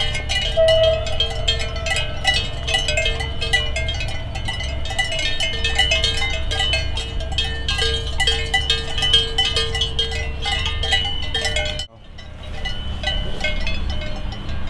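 A chorus of many cowbells clanking irregularly on a grazing herd of cows, with overlapping ringing tones. The clanking drops out for an instant about twelve seconds in and resumes.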